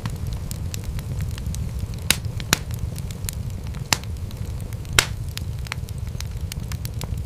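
Wood fire crackling in a fireplace: a steady low rumble of flames with many small ticks and a few sharp pops, the loudest about five seconds in.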